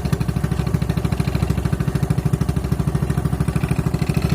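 A small fishing boat's engine running steadily with a rapid, even putter.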